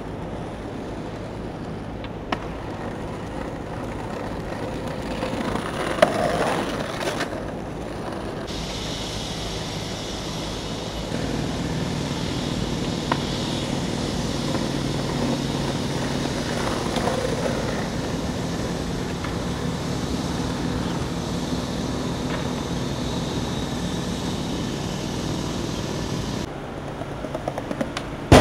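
Skateboard wheels rolling on city pavement over steady street-traffic noise, with a few sharp clacks of the board hitting the ground. The background changes abruptly a few times.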